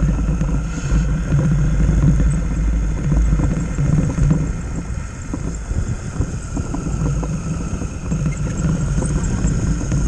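Radio-controlled model trucks driving through snow: the electric motors and gearboxes make a steady high whine over a continuous low rumble.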